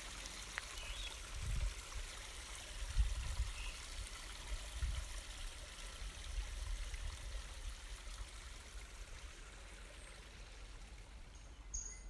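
Steady rushing of flowing water, like a stream or waterfall, slowly fading over the last few seconds, with a few soft low thumps in the first half.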